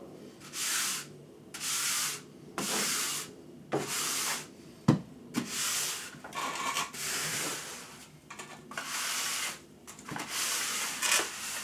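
Wooden float rubbing and scraping across a wet sand-and-cement mortar shower bed in repeated strokes, about one a second, smoothing and sloping the bed toward the drain.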